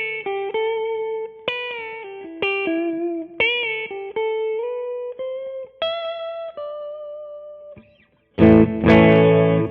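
Electric guitar with a Lace Alumitone bridge pickup split to single-coil mode, played clean through an amp, with a Strat-like quack. A melodic line of picked single notes and double stops runs for about eight seconds. After a short gap a loud strummed chord rings out near the end.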